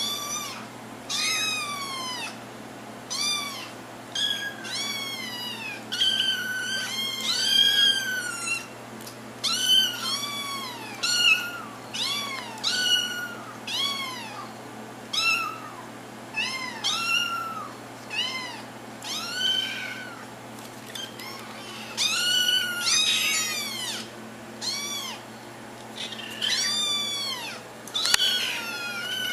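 Several young kittens meowing over and over: high-pitched calls that rise and fall in pitch, about one a second, sometimes overlapping.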